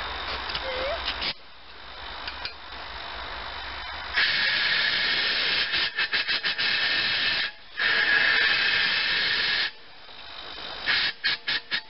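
Compressed air hissing from an air hose blown into a homemade pulse jet to start it. Long blasts begin about a third of the way in, broken by short gaps, and near the end a quick run of short puffs; the jet has not yet caught.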